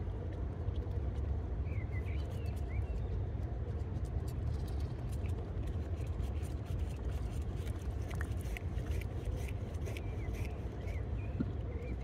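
Outdoor ambience: a steady low rumble with scattered sharp ticks, denser in the second half, and a few short high chirps of small birds.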